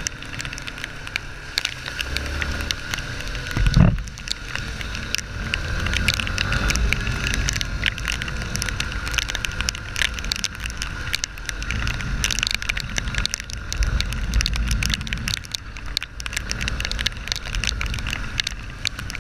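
Rain-soaked ride on a Yamaha Ténéré 250 motorcycle: rushing wind and a low rumble with constant crackling of raindrops on the mic, and a thump about four seconds in.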